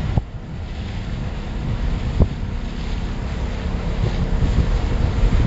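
Wind buffeting the microphone on a pontoon boat under way, over the steady hum of its Yamaha 85 three-cylinder two-stroke outboard and water noise. Two short thumps come about a quarter of a second and two seconds in.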